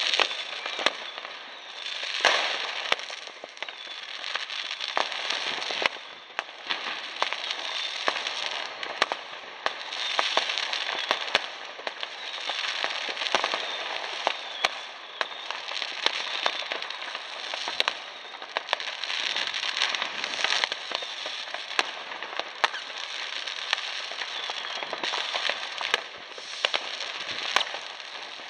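New Year's fireworks going off across a town: a constant crackle of firecrackers and rockets with frequent sharp bangs, one after another at irregular intervals.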